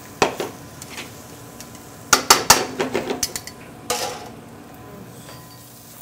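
Steel frying pan and metal utensils clattering on a gas range as the noodles are tossed. There is a clank about a quarter-second in, a quick run of sharp clinks around two seconds in, and a last knock near four seconds. A steady low hum runs under it all.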